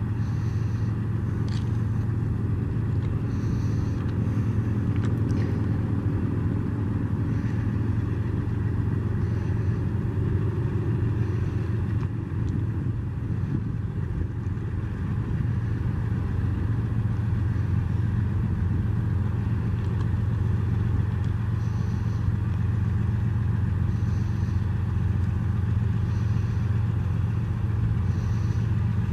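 A car on the road with a steady low rumble. Short, faint, high-pitched blips repeat every couple of seconds near the start and again near the end.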